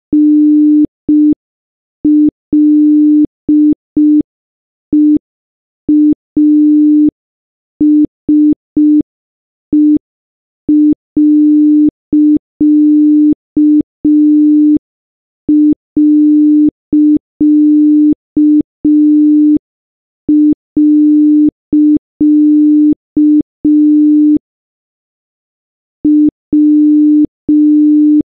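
Electronic beep at one steady, fairly low pitch, keyed on and off in short and long pulses with uneven gaps, like Morse code being sent.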